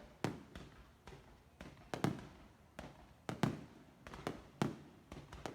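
Fireworks going off: a steady run of sharp bangs, about one to two a second, each trailing off in a short echoing rumble.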